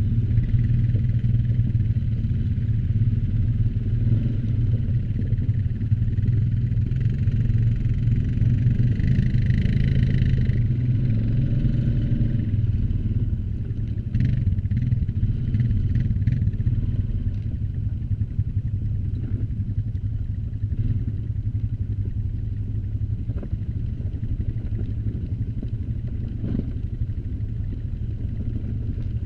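ATV engine running steadily under way, a low drone that eases off slightly about halfway through, with a few clicks and rattles midway.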